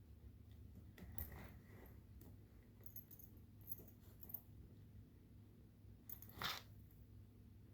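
Faint rustling and light clicks over a low steady hum, with a short louder scratchy rustle about six and a half seconds in: small handling noises, likely a cat moving about and pawing at catnip.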